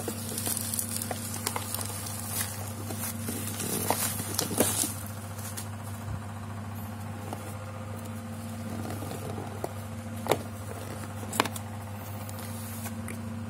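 Dark plastic packaging crackling and rustling as it is pulled off a cardboard box, for about the first five seconds. Then quieter handling of the box with a couple of sharp taps. A steady low hum runs underneath.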